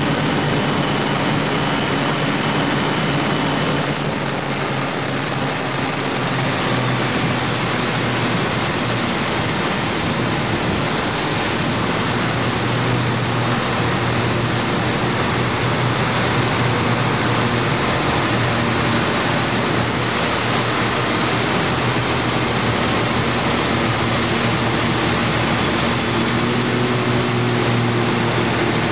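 Twin Scania 12-litre six-cylinder diesel engines of a fast planing powerboat running steadily under heavy load, with a loud rush of wind and water over the hull.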